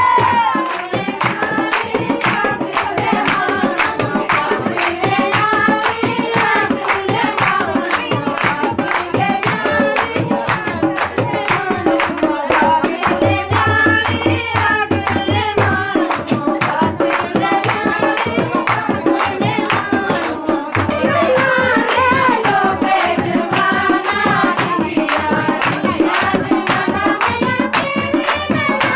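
A person singing a song over a steady, rhythmic drum beat.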